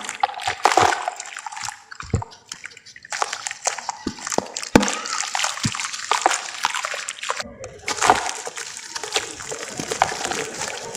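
Dry sand-cement shapes crumbling and breaking apart in water: sloshing and splashing with a dense crackle of small sharp clicks.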